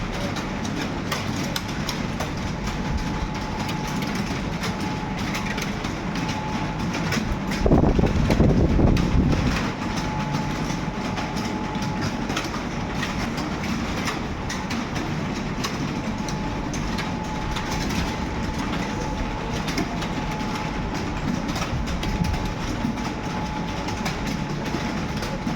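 Many computer keyboards being typed on at once, a steady dense clatter of key clicks. About a third of the way in, a louder low rumble lasts about two seconds.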